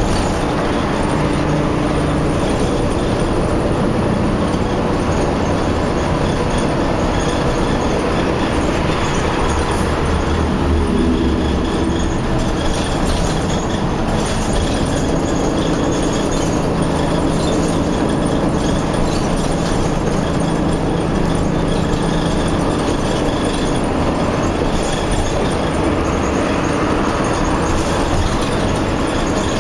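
Heavy engines of highway construction machinery running under a continuous rumble, their pitch shifting now and then as they work.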